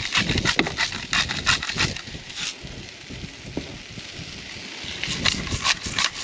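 A hand-twisted spice grinder crunching in quick repeated strokes, about three or four a second. The grinding pauses for a couple of seconds midway and starts again near the end.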